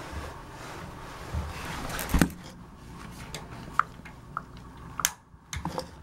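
Handling knocks and a series of sharp single clicks at a gas water heater's control valve as the pilot is relit, the loudest a knock about two seconds in.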